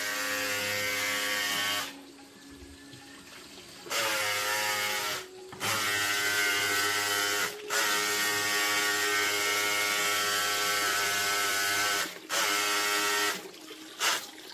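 A small handheld electric power tool's motor runs in repeated bursts, about six in all. It whines at a steady pitch, speeding up at the start of some bursts and stopping between them, with a longer pause about two seconds in.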